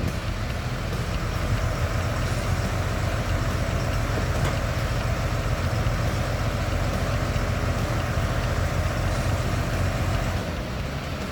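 Heavy vehicle engine running steadily with a low rumble.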